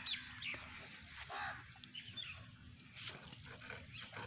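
Faint bird chirps and a few short animal calls over a low, steady background noise.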